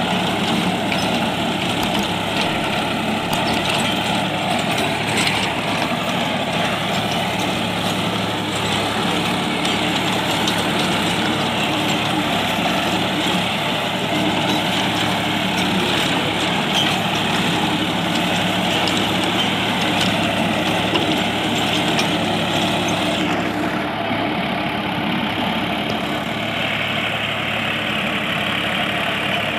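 John Deere 5204 tractor's diesel engine running steadily under load as it pulls a rotavator tilling the soil, with a dense mechanical clatter over the engine note. About three-quarters of the way through, the higher hiss drops away somewhat.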